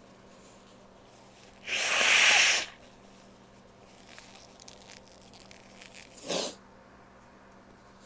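A woman blowing her nose hard for about a second, followed by faint rustling and a brief second nasal sound near the end.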